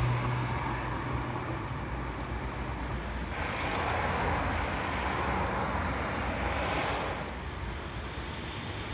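Street traffic noise, with a low engine hum in the first few seconds. It grows louder for a few seconds in the middle.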